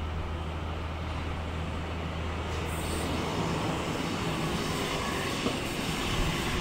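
Sydney Trains H set (OSCAR) electric multiple unit running in along the platform as it arrives. A steady low hum gives way about three seconds in to a fuller rumble of the cars passing close by, which grows slightly louder.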